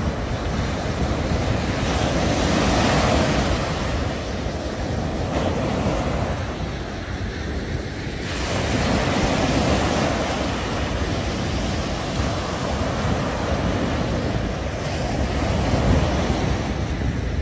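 Small waves breaking and washing up a sandy beach, the surf swelling louder and easing off every several seconds.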